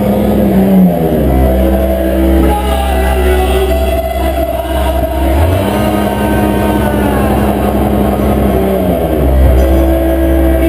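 Loud live industrial noise music through a PA: a heavy low drone under held tones that slide down and back up in pitch.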